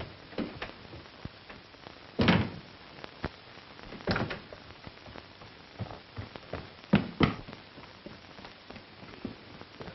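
A few dull thumps and knocks over a steady faint hiss, the sharpest a pair of knocks in quick succession about seven seconds in.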